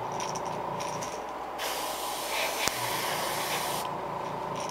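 Airbrush spraying yellow acrylic paint onto a crankbait lure blank: a high hiss that starts about a second and a half in and stops near the end, over a steady hum, with a sharp click partway through.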